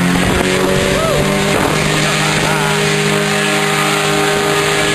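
Rescue boat's engine running at a steady pitch close by.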